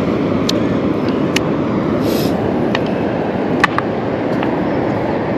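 Steady rushing noise of wind and surf, with a few light clicks as the drone and its remote controller are handled.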